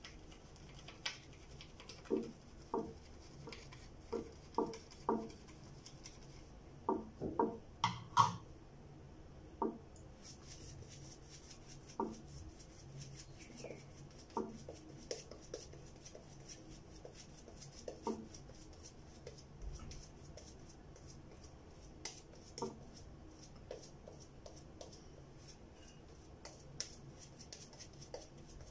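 Shaving brush working up and applying lather: a run of light knocks and clinks against the lathering bowl over the first eight seconds or so, then softer scattered clicks and a faint bristly hiss as the lather is brushed onto the face.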